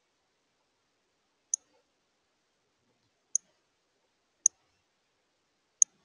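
Male northern cardinal giving sharp, high chip calls, four times at irregular gaps of one to two seconds.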